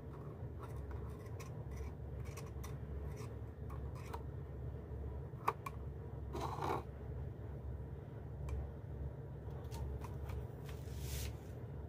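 Clear plastic packaging of a retail box being handled: scattered light clicks and crinkles, a sharp click about five and a half seconds in, a short rustle a second later and another near the end.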